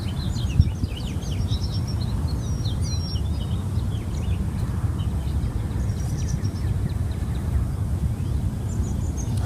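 Small birds chirping and twittering, busiest in the first few seconds with a few calls later, over a steady low rumble.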